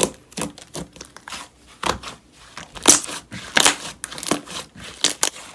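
Slime being pressed and squished by hand, giving an irregular string of sharp clicks and crackly pops.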